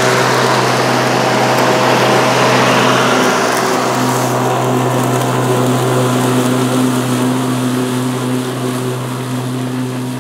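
PowerSmart 80V 26-inch dual-blade cordless electric lawn mower running while its blades cut thick St. Augustine grass: a steady electric hum with a whirring hiss. The hiss drops away about four seconds in, and the sound grows quieter as the mower moves off.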